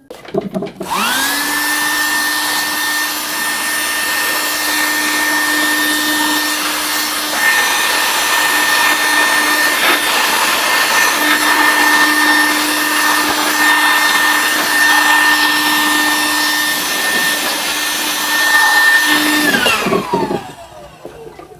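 A small electric blower motor running steadily with a high whine. It spins up about a second in and winds down with a falling whine near the end.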